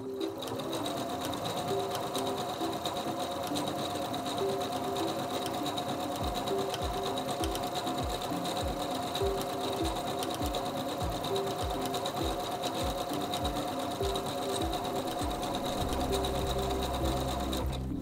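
SINGER C430 computerized sewing machine stitching at a steady speed: the motor hums with a steady whine while the needle mechanism ticks rapidly, sewing a row of decorative overedge stitches.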